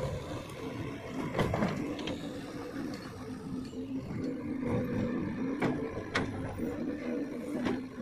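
Diesel engine of a JCB 3DX backhoe loader running steadily, with several sharp metallic knocks scattered through it.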